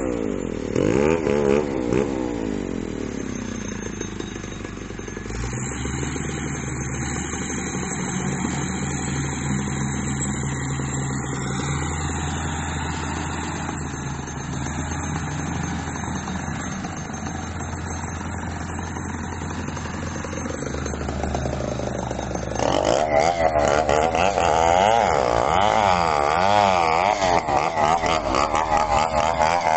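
Crawler bulldozer's diesel engine running at a steady pitch. About three-quarters of the way through it gets louder, and the pitch swings up and down as the throttle and load change.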